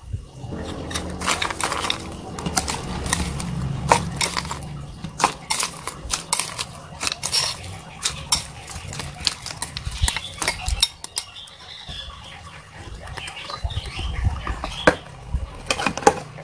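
A spoon clinking against a cup in many irregular sharp clicks while stirring a drink mix.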